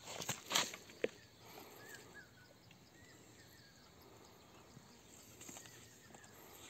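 Quiet outdoor background with faint small birds chirping now and then. Near the start there are a couple of short rustling scrapes, then a single sharp knock about a second in.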